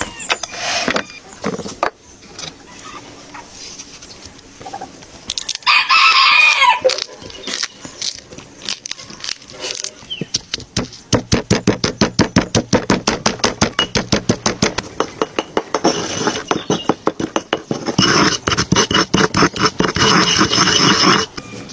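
A rooster crows loudly once about six seconds in. From about halfway, a stone pestle pounds green chillies with salt in a stone mortar, in rapid even strokes of about five a second.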